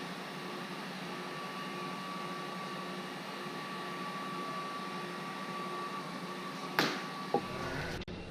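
Heat gun blowing steadily with a thin whine, used to soften old paint protection film for peeling. Two sharp clicks about half a second apart near the end.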